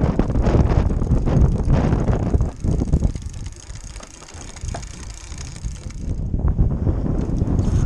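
Wind buffeting the microphone with a heavy low rumble, easing off for a few seconds in the middle.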